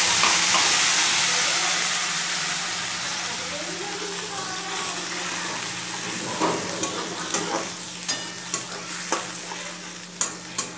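Wet onion, ginger, tomato and garlic paste sizzling in hot oil in a kadai, loud at first and dying down over the first few seconds. From about halfway the paste is stirred, with a string of sharp scrapes and taps of the spatula against the pan.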